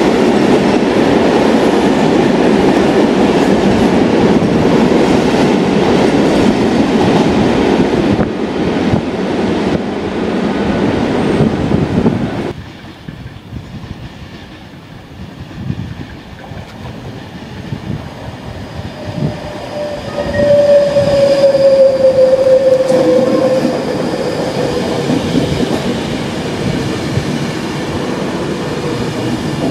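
An empty freight train of stanchioned timber wagons rolls past, a loud dense rumble with wheels clacking over the rail joints, which cuts off suddenly. Then a Class 390 Pendolino electric train arrives and slows, with a clear falling whine in the middle of its approach.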